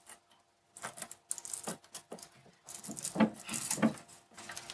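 Cable being handled and pressed in along a ribbed plastic conduit: irregular rubbing scrapes and small clicks, starting about a second in.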